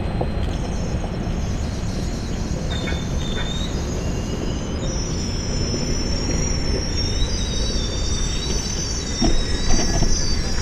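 Union Pacific passenger train rolling by with a steady rumble. High, wavering wheel squeals come in a few seconds in and grow stronger and more layered through the rest.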